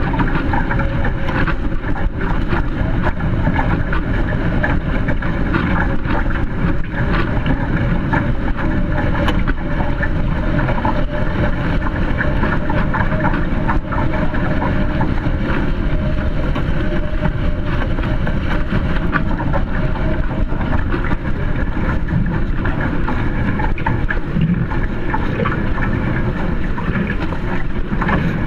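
Wind buffeting a boat-mounted camera's microphone, mixed with water rushing and spraying off the hulls of a Hobie Tiger Formula 18 catamaran sailing at speed. The noise is loud and steady.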